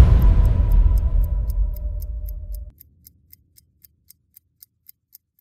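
The tail of a cinematic boom and music chord dies away with a low rumble and held tones, then cuts off abruptly about two and a half seconds in. After it comes a faint, even ticking like a clock, about four ticks a second.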